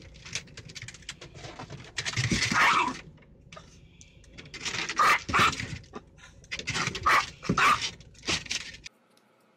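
Small dog on a car's dashboard, barking and whining in about four loud outbursts with quieter stretches between; the sound cuts off abruptly near the end.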